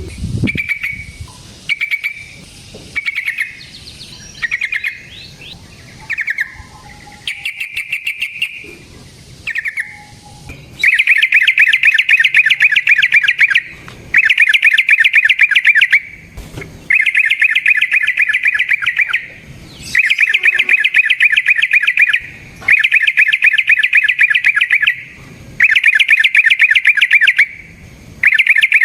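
Yellow-vented bulbul (trucukan) singing: short varied phrases at first, then from about eleven seconds in a series of long, rapid rolling trills of two to three seconds each, repeated with brief pauses.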